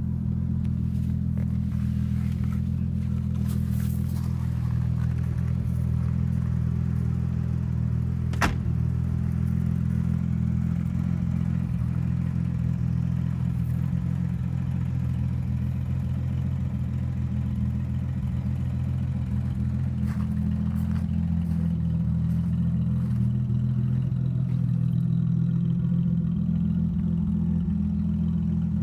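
TVR S convertible's Ford V6 engine idling steadily, with one sharp click about eight seconds in.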